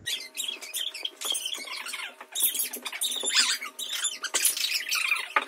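A soft, pumpkin-filled dough log being handled with rubber-gloved hands and laid onto an oiled baking tray. It makes close-miked sticky crackling and squishing, many quick small clicks in a row.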